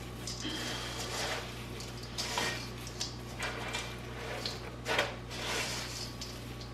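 A hand working marinated chicken pieces through crushed crackers in a stainless steel bowl: irregular crackly rustling and crunching of crumbs, with short scrapes and knocks. A steady low hum runs underneath.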